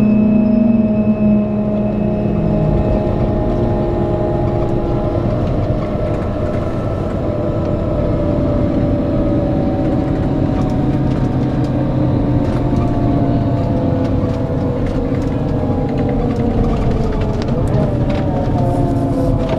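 Scania K410 coach's 13-litre six-cylinder diesel running under way, a steady engine and road drone. Its note slowly falls in pitch through the second half, and a few short clicks or rattles come near the end.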